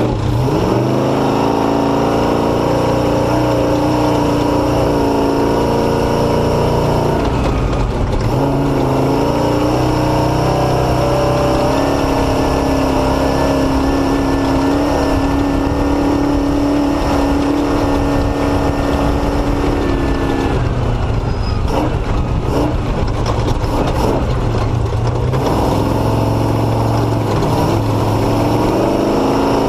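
Motorcycle engine running under way off-road, its note shifting with throttle and gears: it drops at about 7 and 21 seconds in, holds steady in between, and climbs again near the end.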